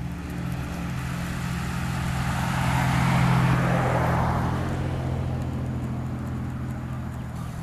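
A motor vehicle driving past, with a steady low engine hum. The sound swells to its loudest about three seconds in and then fades away.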